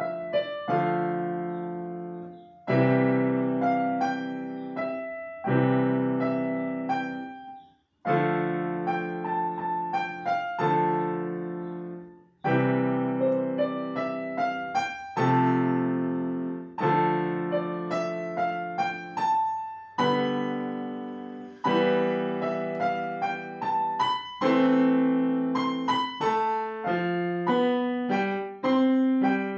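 Digital piano played with both hands: a melody over low bass notes, in short phrases with brief pauses between them.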